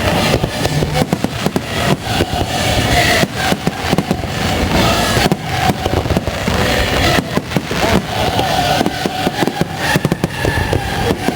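Fireworks display going off in a dense, continuous barrage of bangs and crackles, many bursts overlapping.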